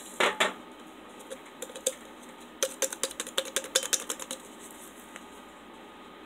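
Fingers tapping and flicking a small drink-mix powder packet held over an empty glass to shake the powder out: a couple of light clicks at first, then a quick run of light taps for a little under two seconds in the middle.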